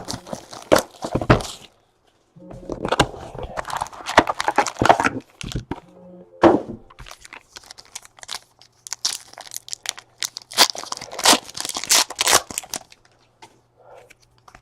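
Trading-card packaging being torn open and crumpled, crackling and crinkling in several bouts with short pauses between them.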